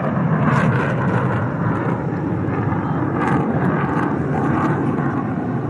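Steady jet rumble of the JF-17 Thunder's single engine as the fighter climbs away in vertical rolls, heard from the ground.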